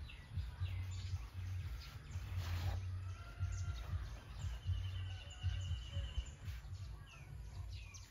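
Birds chirping and calling, with a steady trill about halfway through, over a low fluctuating rumble.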